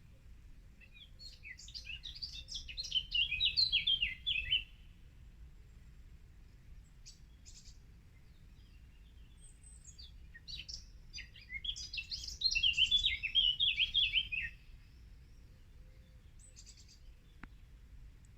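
A songbird singing two long phrases of rapid, varied high notes, about ten seconds apart and each lasting around four seconds, with a few short chirps between. A low, steady background rumble runs underneath.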